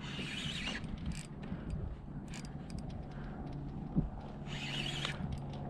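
Spinning reel clicking and rasping as a hooked fish, likely a jack crevalle, is fought from the kayak, with two short rasping bursts, one at the start and one about four and a half seconds in. A single sharp knock comes about four seconds in.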